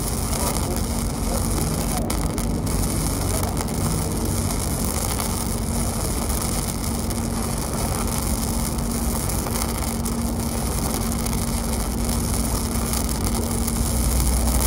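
Steel being arc welded: the steady hiss of the welding arc over a constant low hum, the low rumble growing a little louder near the end.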